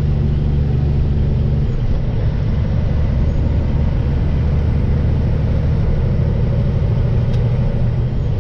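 Semi truck's diesel engine and exhaust heard from inside the cab, a steady low drone whose pitch shifts about two seconds in and then holds. The exhaust drone sets in around 1600 RPM, and the driver suspects an exhaust leak.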